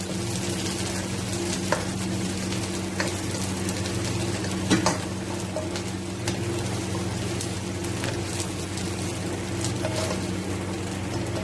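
Cubed onion, capsicum and tomato sizzling in hot oil in a pan while being stirred, with scattered clicks and scrapes of the utensil against the pan and one sharper knock about halfway through. A steady low hum runs underneath.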